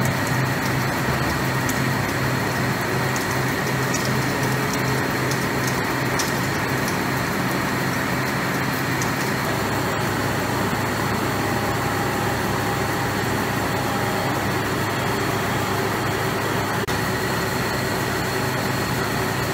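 Vertical boring machine (VTL) running with a railway wagon wheel spinning on its table while the wheel's inner bore is cut: a loud, steady machine noise with a low hum and a thin high whine.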